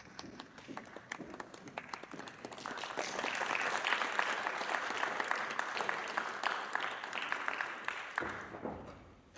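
Theatre audience applauding the end of a scene. Scattered claps swell into full applause about three seconds in, then die away near the end.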